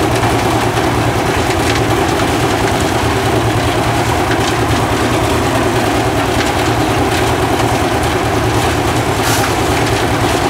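Portable drum concrete mixer running steadily, its engine turning the drum as it churns a batch of concrete.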